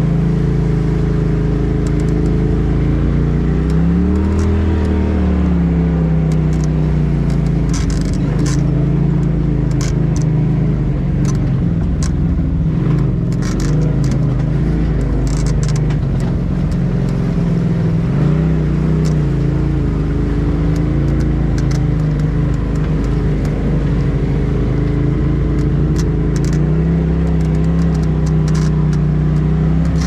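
Polaris RZR side-by-side's engine running while driving, heard from inside the cab, revving up briefly about four seconds in and again around eighteen seconds. Scattered sharp clicks and knocks sound throughout.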